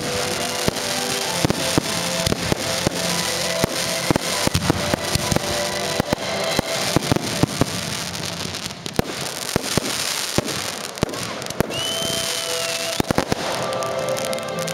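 Aerial fireworks going off in quick succession: many sharp bangs and crackles from bursting shells and rising comets, with music playing throughout.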